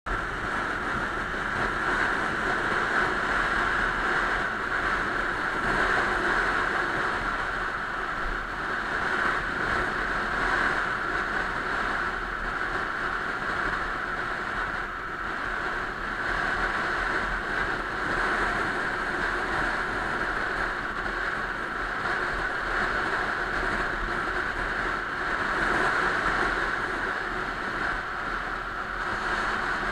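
Steady rush of wind over the microphone and road noise from a camera on a vehicle moving through traffic, without a clear engine note.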